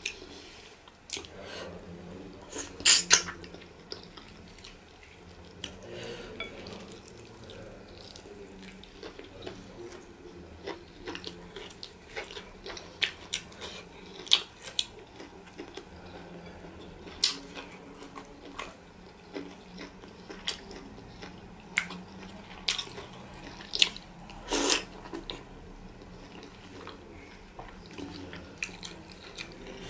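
Close-up eating sounds of fufu and light soup eaten by hand: wet squelching of the soft dough and soup, chewing, and sharp wet clicks and smacks at irregular moments. The loudest clicks come about three seconds in and about 25 seconds in.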